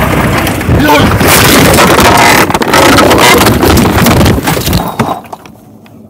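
A golf cart rolling over while driving fast on rough ground: very loud running and rattling noise, then a jumble of bangs and clatter as it tips over, cut off abruptly about five seconds in.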